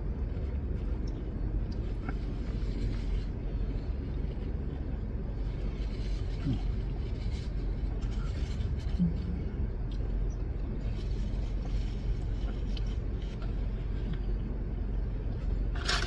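Steady low rumble in a car cabin, with faint small clicks of people chewing.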